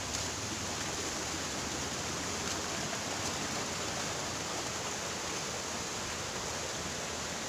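Steady rush of water from a waterfall and its rocky stream, an even hiss that neither rises nor falls.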